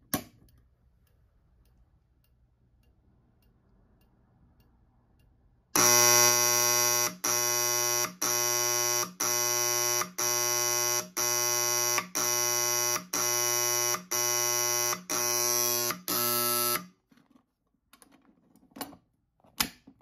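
Wheelock 31T AC horn on a refrigeration door alarm sounding a door-open alarm in slow march time, about one blast a second. It starts about six seconds in, after the door-open delay, and stops after roughly eleven blasts.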